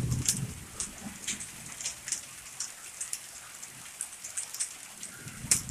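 Heavy rain in a hailstorm, a steady hiss with irregular sharp ticks of hailstones striking, several a second, and one louder hit near the end.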